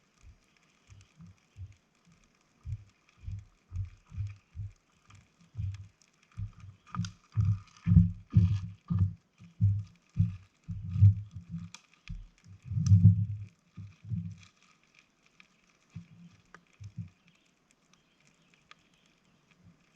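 Footsteps on the forest floor: dull low thuds at about two a second, growing louder and stopping a little past the middle, with a few stray thuds after.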